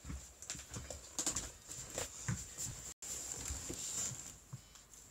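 Irregular taps, knocks and rustles of a mobile phone being picked up and handled close to the microphone, with a brief dropout in the audio about three seconds in.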